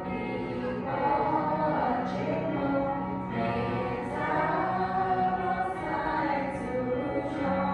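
Choral music: voices singing held notes that change slowly, over a steady low tone.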